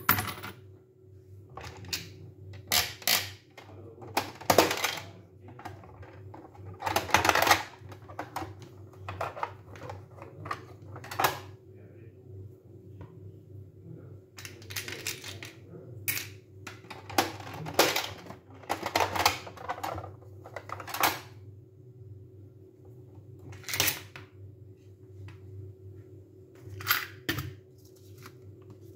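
Hard plastic clicks and clatters from a toy vending machine: coins going into the slot and small toy drink cans dropping into its tray, at irregular intervals over a steady low hum.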